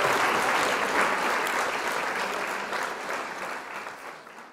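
Crowd applause, a dense patter of many clapping hands, fading steadily away and stopping right at the end.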